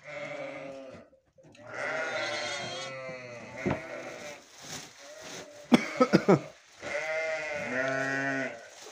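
Sheep and goats bleating, several long calls one after another.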